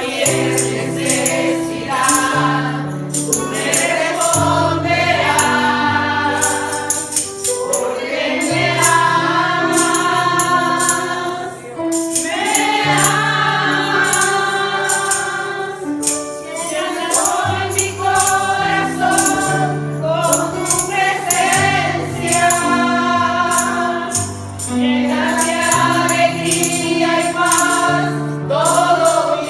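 Live gospel worship music: a group of voices singing a praise song over held bass and keyboard chords, with a steady beat of percussion strikes.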